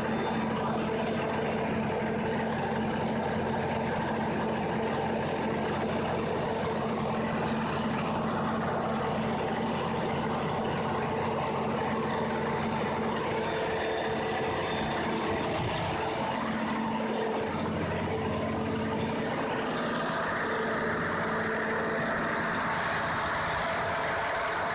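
Building backup generator's engine running steadily on a test run after a button start, with a loud, even hum.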